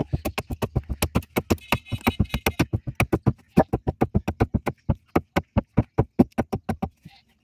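Rapid blows of a small hatchet chopping into the edge of a wooden plank, trimming it, at about six or seven blows a second. There is a short pause partway through, and the chopping stops near the end.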